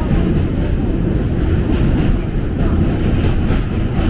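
Osaka Metro subway train running, a steady low rumble.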